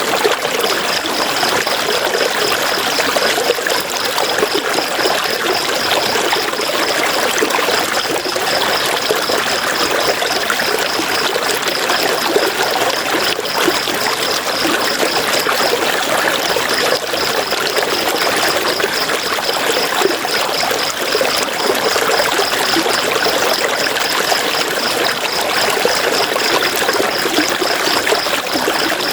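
River water running in a steady rush. Above it is a high, fast-pulsing trill that breaks off briefly a few times.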